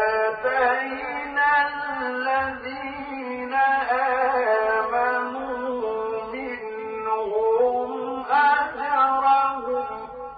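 A male reciter's voice chanting the Quran in melodic tajweed style: one long unbroken phrase of held, ornamented notes that bend up and down, fading out near the end.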